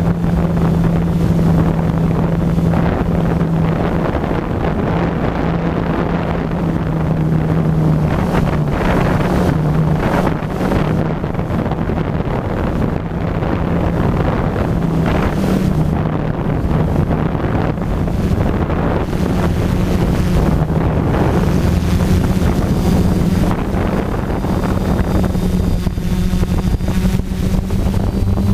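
DJI F450 quadcopter's four motors and propellers humming steadily, picked up by the camera on board, with a slight wavering in pitch as the motors adjust. Gusty wind buffets the microphone.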